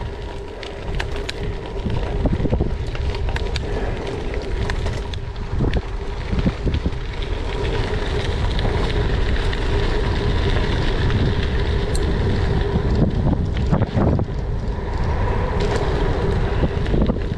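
Wind buffeting the microphone over the steady rumble of a titanium gravel bike's 38 mm tubeless tyres rolling on a gravel path, with scattered short clicks and knocks from stones and bumps.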